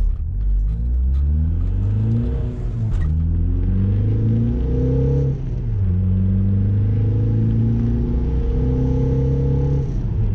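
Volkswagen Jetta's 1.9 TDI four-cylinder diesel accelerating hard through the gears: the engine note climbs, then drops at each of three upshifts, about two and a half, five and a half and ten seconds in. The engine sits on newly fitted stiff polyurethane mounts.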